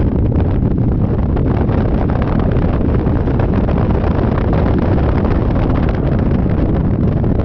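Wind buffeting the microphone of a rider on a Yamaha Majesty 400 scooter at speed: a loud, steady, low rumble with no break.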